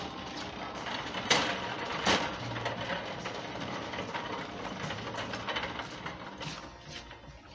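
Shopping cart rolling and rattling along a store floor, with two sharp knocks about a second and two seconds in.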